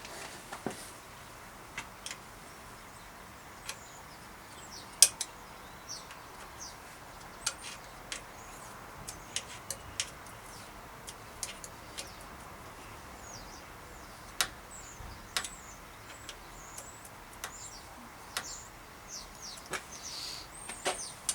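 Scattered sharp clicks and taps of hands and tools on metal bike parts as a front derailleur is positioned and clamped, the loudest about five seconds in. Small birds chirp in the background, more often in the second half.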